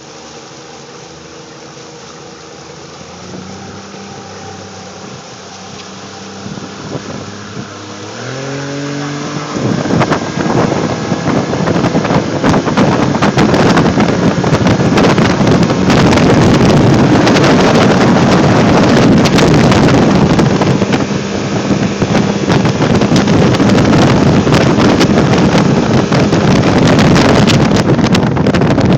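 Freshly rebuilt 70 hp Johnson outboard motor idling steadily, then throttled up about eight seconds in, its pitch rising, and running at speed with heavy wind buffeting the microphone.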